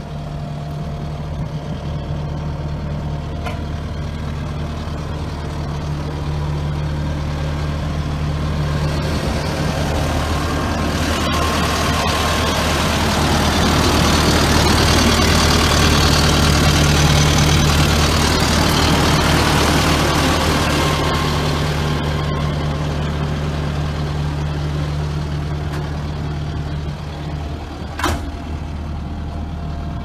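The Kubota SVL75-2's 74 hp four-cylinder turbocharged diesel (Kubota V3800) running steadily with a low, even drone. It grows louder with a rushing fan-and-air hiss in the middle, heard close to the open engine compartment. A single sharp click near the end.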